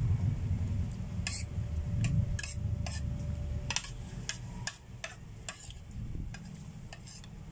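Metal fork clicking and scraping against a ceramic plate as spaghetti is twirled and scooped, about a dozen sharp irregular clicks. Chewing is heard in the first few seconds.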